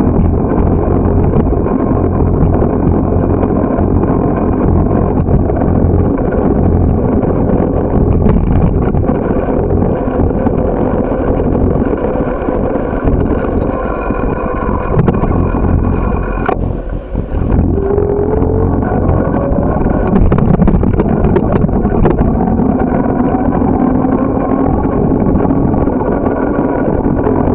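Steady low wind and road noise on the microphone of a camera mounted on a moving bicycle. The noise briefly drops away about two-thirds of the way through.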